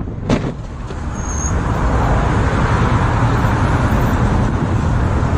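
Wind rush and road noise on a sport motorcycle's helmet-camera microphone at highway speed, growing louder from about a second in. A single sharp knock about a third of a second in.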